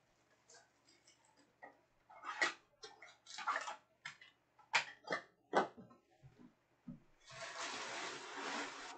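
Trading cards and their packaging being handled: a string of short taps, clicks and rustles, then a longer rustle of packaging lasting about a second and a half near the end.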